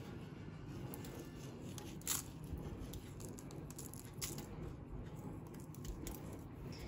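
Faint handling noise from a handheld camera: a steady low rumble with scattered light clicks and crackles, the sharpest about two seconds in.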